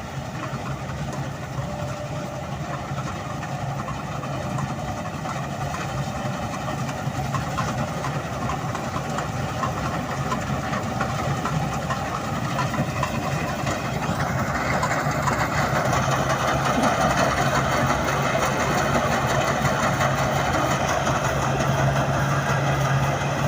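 Rice combine harvester's engine running steadily, growing louder and fuller about two thirds of the way through.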